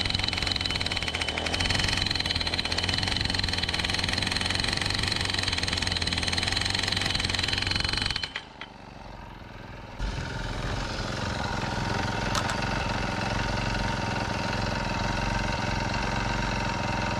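Rhino gas-powered post driver running and hammering rapidly, driving a 2-inch galvanized steel pipe piling. The hammering stops about eight seconds in, and a couple of seconds later a steady small engine is heard running at idle.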